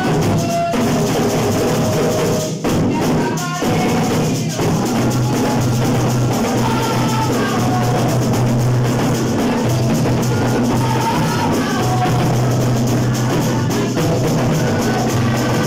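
Assiko drumming by a children's band, several hand drums and stick-beaten drums keeping a dense, steady rhythm, with a boy singing over it through a microphone.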